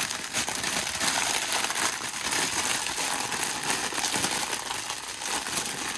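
Plastic crinkling and rustling as a diamond painting canvas under its clear protective film is handled and smoothed flat.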